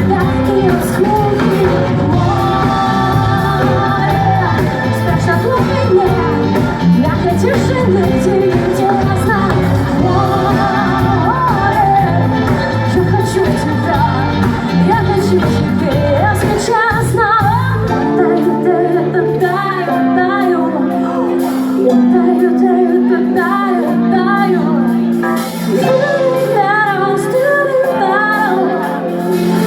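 Live pop band playing a song with a singer's voice over it. About two-thirds of the way in, the drums and bass drop out, leaving held chords under the voice.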